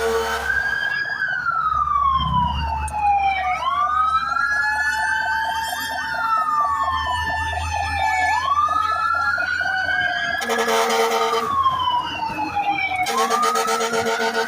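Several fire-truck sirens wailing together, their pitches rising and falling out of step with each other. A steady loud tone cuts in twice near the end.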